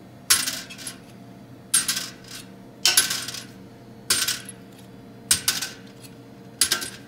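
Steel transmission clutch drums and hubs from a 6L80 set down and shifted on the workbench: six sharp metallic clanks, each ringing briefly, about one every second or so.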